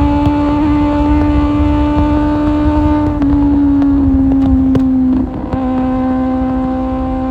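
Kawasaki Z750's inline-four engine with an Akrapovic exhaust, running at steady revs on the move. Its note steps slightly lower twice, dips briefly about five seconds in, then holds steady at a slightly lower pitch.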